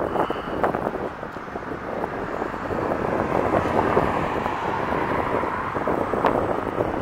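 Steady vehicle engine and road noise that swells a little about two seconds in, with one sharp click near the end.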